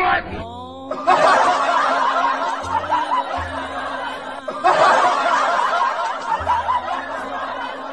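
Many people laughing together, in two long bursts with a short break in the middle, over background music; a short falling glide sounds at the very start.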